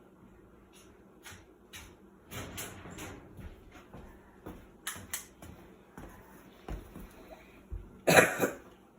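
Scattered clicks, knocks and rustling of objects being handled, sparse at first and growing busier, with the loudest knocks near the end.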